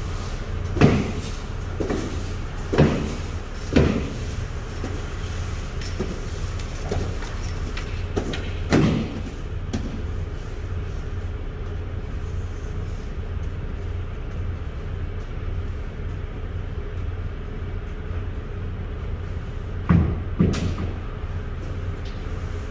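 Knocks and thuds ringing in an empty semi-trailer's metal box as its ridged floor is swept with a broom: several in the first ten seconds and a close pair near the end. A steady low machine hum runs underneath.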